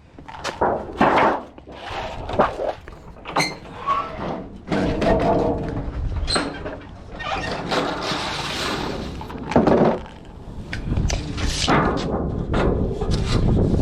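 Sheet aluminium trim being cut and handled on a metal brake: a string of thunks and clanks of metal, with a longer rasping stretch about halfway through as the brake's slitter cuts the sheet to width.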